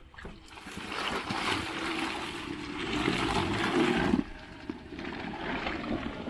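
Golf cart churning through muddy ruts, tires splashing through mud and water, with a steady motor tone that rises slightly and cuts off abruptly about four seconds in.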